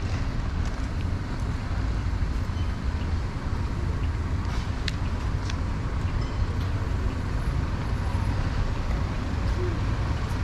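Steady low rumble of a moving metro train, with a few sharp clicks and rattles about halfway through.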